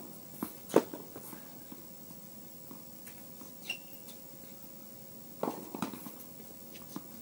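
Tennis ball being struck by rackets and bouncing on the court: a few sharp, irregularly spaced knocks, the loudest under a second in.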